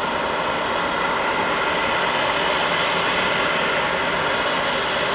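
Airbus A340-600's four Rolls-Royce Trent 500 engines running at taxi power as the airliner taxis. A steady jet rush with a high, even whine.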